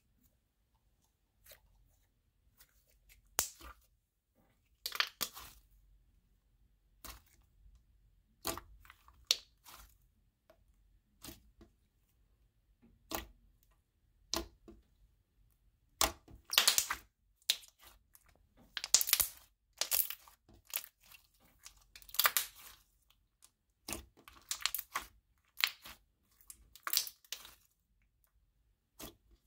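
Thick white slime being squeezed, poked and stretched by hand, giving irregular sharp pops, crackles and tearing sounds, busiest and loudest a little past the middle.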